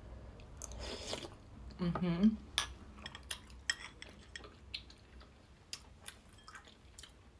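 A ceramic soup spoon clinking lightly against a porcelain bowl several times, with soft chewing of glutinous rice balls. Near the start there is a puff of blowing on a hot spoonful, and a short "mm" hum about two seconds in.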